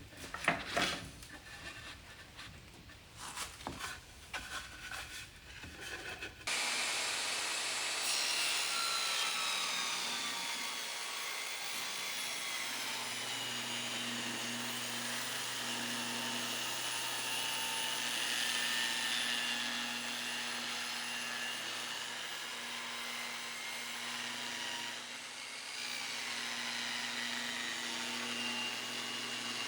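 Plane strokes rasping along a wooden board for about six seconds, then a steady motor starts abruptly, running with a low hum and a slightly wavering whine.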